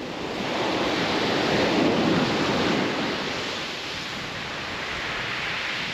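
Sea waves breaking on a shingle beach: a surge of surf that builds about a second in and eases off after about three seconds into a steadier wash.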